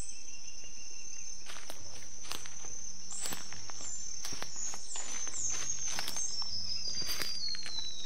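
Irregular footsteps on the forest floor, starting about a second and a half in, over a steady high-pitched insect drone. In the second half a bird gives a run of short high notes that slide down in pitch.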